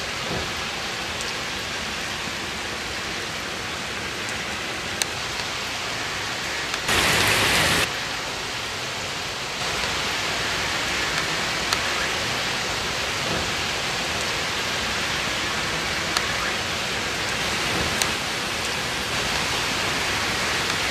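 Heavy rain pouring down steadily, a dense hiss with scattered sharp drip ticks. There is a brief louder rush about a third of the way in, and the rain sounds louder from about halfway.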